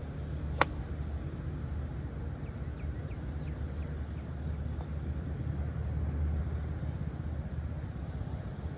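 A golf club striking a ball once, a single sharp crack about half a second in, over a steady low rumble. It is the strike the instructor says sounds different when the hands follow the optimized hand path.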